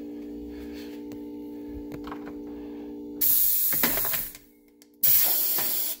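Air-powered can crusher firing: two loud bursts of compressed-air hiss, each about a second long, from its pneumatic cylinder and valve as a can is crushed.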